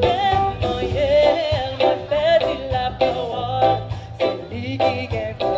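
Live band music with a lead singer: a voice with wavering vibrato over regular drum beats and a steady bass line.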